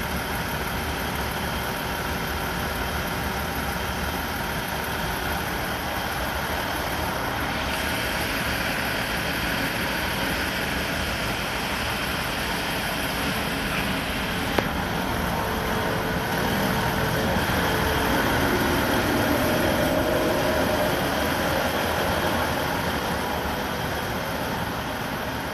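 Shinano Railway 115-series electric train standing at a platform, its onboard equipment running with a steady hum and hiss. A single sharp click about halfway through.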